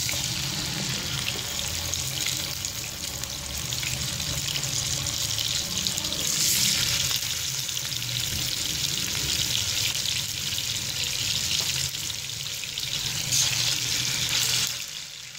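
Masala-marinated fish pieces frying in hot cooking oil in a non-stick pan: a steady sizzling hiss that grows louder for a few seconds about six seconds in as more pieces go into the oil.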